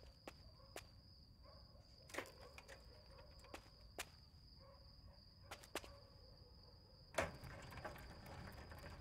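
Faint night ambience: crickets keep up a steady high trill, under scattered clicks and knocks as a bicycle is handled. About seven seconds in there is a louder scrape and rattle.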